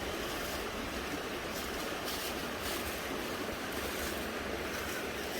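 Small stream running, a steady rushing of water.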